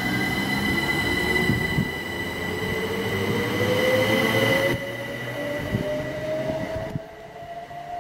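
Electric multiple-unit passenger train running past close by and pulling away, its traction motors whining steadily upward in pitch as it accelerates over a steady high-pitched whine and the rumble of the carriages. The rumble drops away suddenly about two-thirds of the way through as the train moves off, and again near the end, leaving the rising whine.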